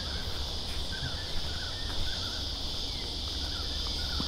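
A steady, high-pitched drone of insects in the bush, with faint bird chirps scattered through it and a low rumble underneath.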